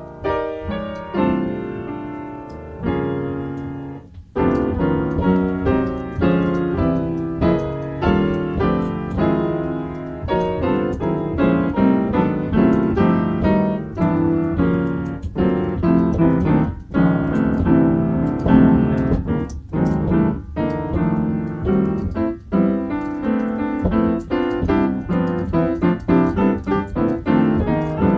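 Solo piano improvisation, its chord progression also made up on the spot. A few spaced notes and chords open it, with a brief break about four seconds in, then fuller playing: chords under quick runs of notes.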